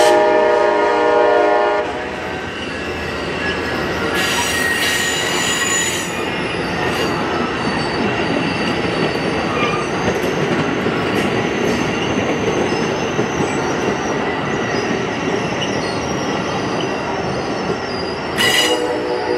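Amtrak passenger train horn sounding a chord that cuts off about two seconds in, as the ALC-42 Charger-led train passes close by. The steel wheels of the Superliner bilevel cars then roll by on the rails, with a high wheel squeal from about four to six seconds in. A horn sounds again just before the end.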